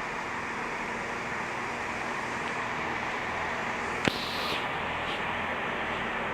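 Train standing at the platform, running steadily, with a sharp click and a short burst of air hiss about four seconds in.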